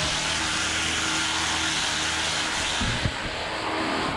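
Handheld angle grinder running steadily at full speed with a loud hiss and hum, easing slightly with a couple of low knocks about three seconds in.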